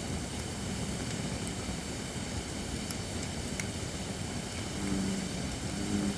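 Holly firewood burning in a campfire, crackling with a few sharp pops over a steady rushing hiss. A low droning sound comes in twice near the end.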